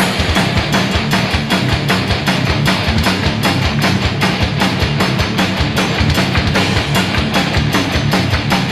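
Background rock music with guitar over a fast, steady drum beat.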